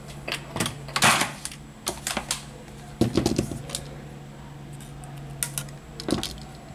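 Scattered light clicks and taps from handling a partly opened smartphone and small hand tools on a repair mat, with a cluster about a second in and another about three seconds in.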